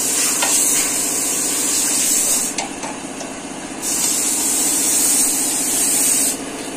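Engine idling steadily. A loud hiss lies over it, breaks off about two and a half seconds in, comes back a second later and stops sharply near the end.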